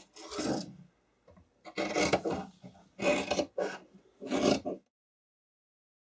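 Scissors cutting through folded spandex fabric: four short cutting strokes about a second apart.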